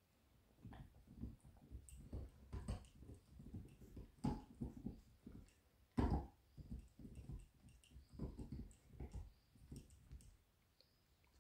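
Beagle gnawing on a chew, its teeth making faint, irregular crunches and clicks, the loudest about six seconds in; the chewing stops shortly before the end.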